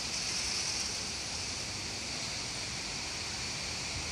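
Rain falling steadily, heard as an even hiss.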